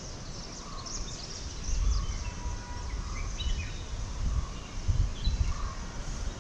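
Birds chirping and calling in the trees, with gusts of wind buffeting the microphone, strongest about two seconds in and again about five seconds in.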